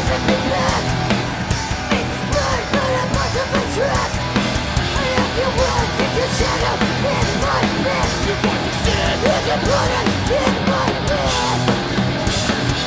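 Live hardcore punk band playing: a singer yelling into the microphone over electric guitar and a drum kit.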